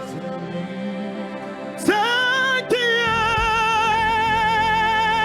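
Live gospel worship music. About two seconds in, a solo voice slides up into a long, high held note with vibrato over sustained keyboard chords, and bass comes in underneath.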